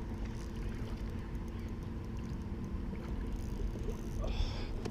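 Steady low rumble of wind buffeting the microphone, with a brief higher rasp about four seconds in.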